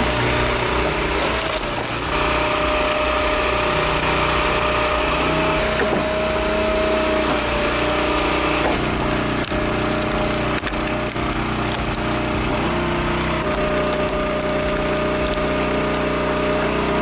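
Engine-driven wood-processing machine running steadily, probably the small engine and hydraulics of a two-way log splitter. Its steady whine shifts pitch slightly a few times as the load changes.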